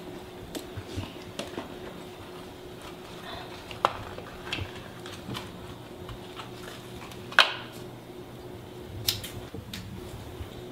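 Scattered small clicks and knocks over a steady low hum. The sharpest clicks come about four and seven seconds in, with a couple more near nine seconds.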